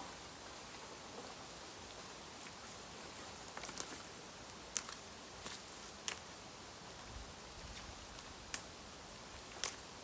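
A handful of sharp, isolated snaps of dry bamboo, the four loudest a second or more apart, over a faint steady outdoor hiss.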